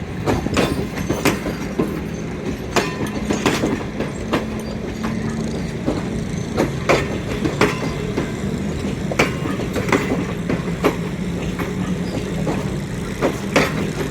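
Railway carriages rolling past, their wheels clicking irregularly over rail joints over a steady low hum.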